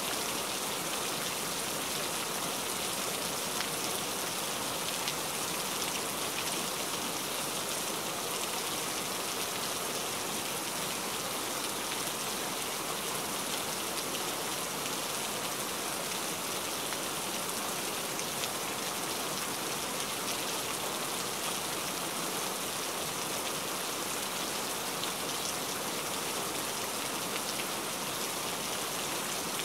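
Steady rain falling: an even, unbroken hiss with occasional faint drop ticks.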